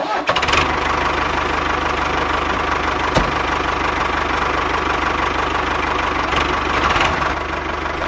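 The mini tractor's engine running steadily with a fast, even chug, easing off slightly near the end. A single click sounds about three seconds in.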